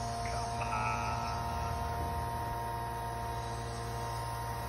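Truck-mounted hydraulic Penz Z-fold log-loader crane working, its engine-driven hydraulic pump giving a steady hum with a whine. A faint higher squeal comes about a second in.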